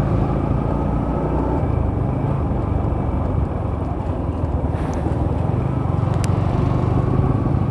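Motorcycle riding along a road: steady engine hum mixed with road and wind noise, with a short click about six seconds in.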